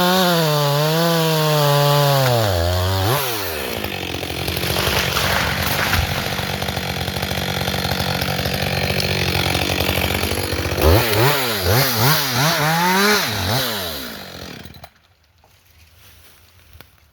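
Chainsaw cutting basswood, the engine pitch wavering under load for the first few seconds, then running steadier and lower. Around two-thirds of the way through it gives several quick throttle blips, then cuts out about fifteen seconds in.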